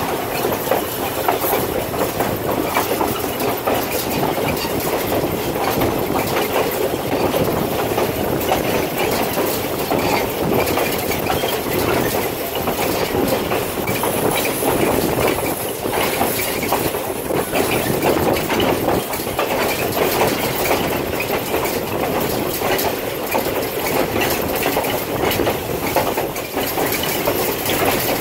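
Passenger car of a steam-hauled excursion train rolling along the track, heard from aboard: a steady rumble and rattle with many small clicks and clacks from the wheels on the rails.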